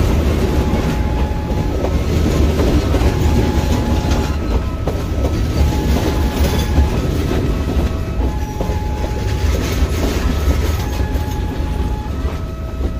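Indonesian KAI passenger coaches passing close by: a loud, steady rumble with the clatter of wheels over the rail joints. Thin, high squeal tones come and go throughout.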